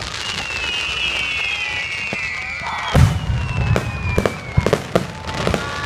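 Fireworks going off: several falling whistles, then a loud bang about three seconds in, followed by a run of sharp pops and crackles, with more whistles starting near the end.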